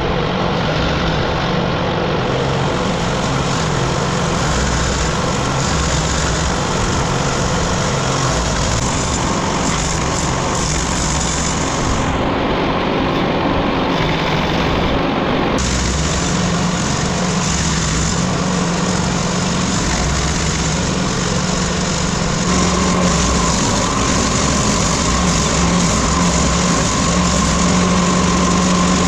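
Small petrol-engined wood chipper running steadily, growing somewhat louder about three quarters of the way through.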